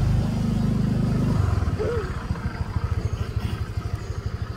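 A small engine running at low revs, a steady low rhythmic chugging. A single short rising-and-falling call sounds briefly about two seconds in.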